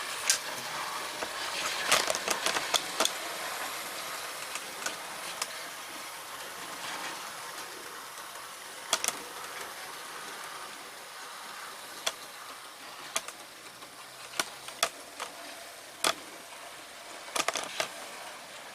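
OO gauge model 0-6-0 tank locomotive running on analogue DC, its small electric motor and gears whirring as it hauls two coaches up an incline, with sharp clicks as the wheels cross rail joints. It fades steadily as the train moves away.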